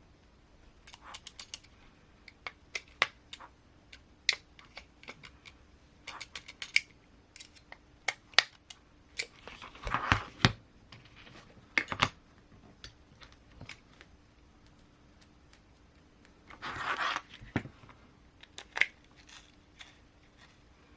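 Small RC transmission parts and hand tools clicking and tapping on a workbench during assembly, in irregular runs of sharp clicks, with two short rustling scrapes about ten and seventeen seconds in.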